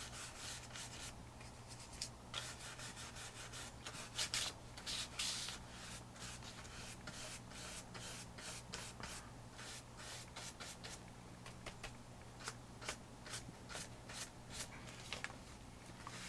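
Big, rough, dry paintbrush scrubbing craft paint onto an old book page in many short strokes, each one a faint scratchy rasp of bristles on paper. A low steady hum runs underneath.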